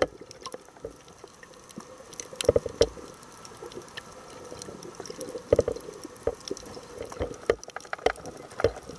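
Muffled underwater sound through a submerged camera's waterproof housing: irregular gurgling bursts of water or bubbles every few seconds over a steady hiss, with scattered sharp clicks.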